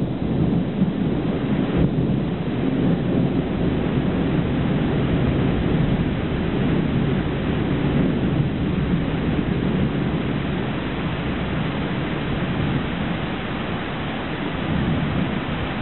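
Long, continuous rolling thunder over steady heavy rain, easing slightly toward the end.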